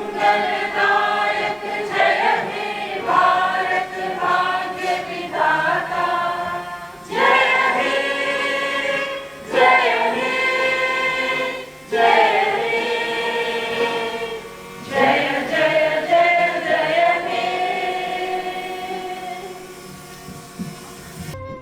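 A choir singing, in sustained phrases a few seconds long, fading out near the end.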